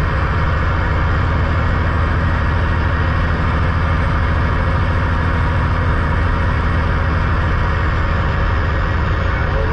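2006 Peterbilt 379's CAT C15 diesel engine running at a steady low drone under way, heard from inside the cab, with an even hiss of road and cab noise over it.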